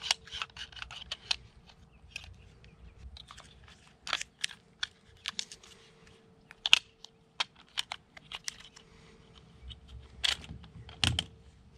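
Irregular clicks and light knocks of hard plastic from a suction-cup phone mount being handled and adjusted, its arm, joints and knobs being turned and snapped into place. Soft rustling lies between the clicks.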